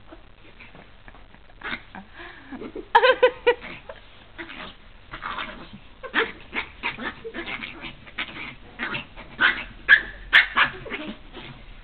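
Chihuahua yapping and barking in quick, excited bursts while it lunges at a person's hands in play. Two sharp snaps come about ten seconds in.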